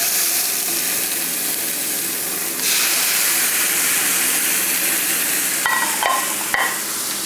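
Tied beef striploin roast searing in a very hot pan of oil: a loud, spattering sizzle that grows louder about two and a half seconds in. A few light clinks come about six seconds in.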